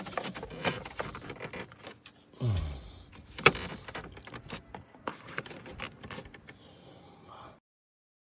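Plastic steering-column trim pieces clicking and rattling as they are handled and snapped into place, with a short falling creak and a sharp snap about three and a half seconds in. The sound cuts off suddenly near the end.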